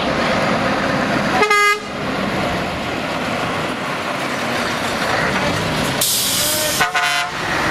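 Diesel engines of Scania tractor units running as the lorries pull away, with two short air-horn blasts, one about a second and a half in and another near the end. Just before the second blast comes a sharp hiss of released air.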